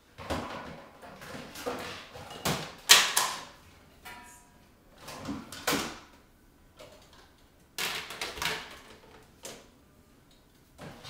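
Clatter and knocks from unloading a dishwasher: dishes and containers being put away and a rack or cupboard door sliding and bumping. The sounds come in several short bursts with quiet gaps, and the loudest knock is about three seconds in.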